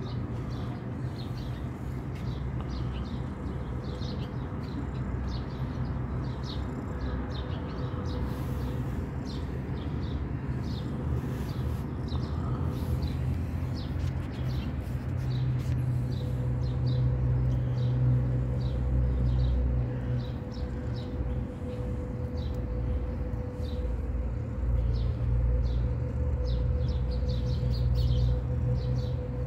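Small birds chirping in many short, scattered high calls over a steady low rumble that grows louder about halfway through.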